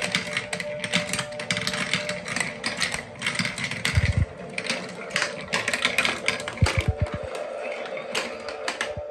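Plastic marbles rattling and clicking as they run down plastic marble-run track and spirals, a quick, uneven stream of clicks with a few low thumps about four seconds in and again around seven seconds. Background music plays underneath.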